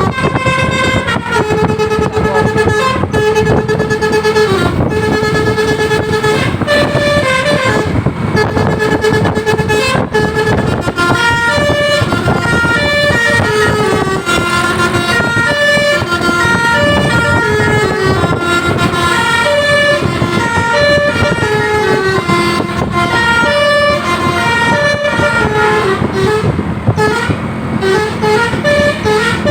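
Basuri multi-tone bus horns playing 'telolet' melodies continuously: held notes in a repeated two-note figure at first, then quicker runs of stepping notes, over the low rumble of bus engines.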